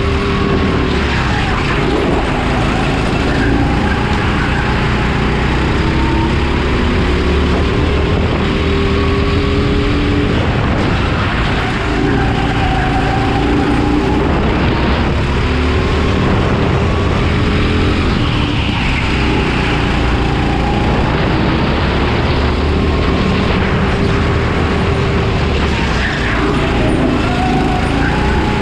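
Honda GX270 single-cylinder four-stroke engine of a racing kart at full race pace, heard on board: its pitch climbs under acceleration and drops off when easing for corners, over and over through the lap.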